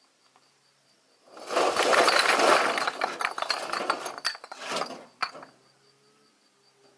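A burst of clattering and crunching from hard objects, about four seconds long, with a few separate sharp clinks near the end. Insects chirp faintly underneath.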